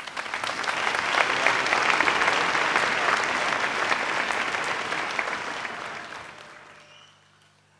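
Large seated audience applauding at the close of a talk. The clapping builds quickly, holds, then dies away over the last couple of seconds.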